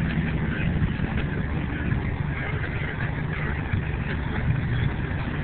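Steady hum inside the cabin of a 1989 Ford Probe GT, its turbocharged four-cylinder engine running with the air conditioning blowing.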